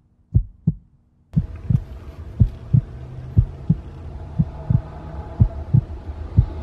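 Heartbeat sound effect: paired low thuds, lub-dub, about one pair a second. About a second and a half in, a steady low hum with hiss comes in beneath it.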